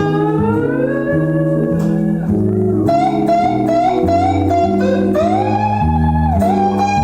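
A band playing an instrumental passage: a lead guitar line with notes that bend and slide in pitch, over a bass line changing notes every second or so.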